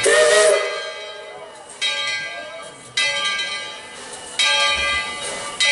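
Steam locomotive's bell ringing in slow, even strokes, about one every second and a half, each stroke ringing on and fading before the next.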